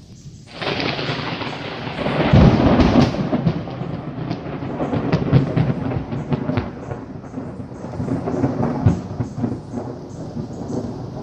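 A clap of thunder: it breaks suddenly about half a second in, is loudest a second or two later, then rolls and rumbles on with crackling for several seconds before dying down near the end.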